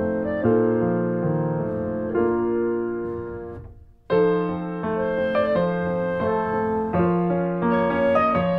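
Background keyboard music, a gentle piano-like melody. It fades away about three and a half seconds in and starts up again about half a second later.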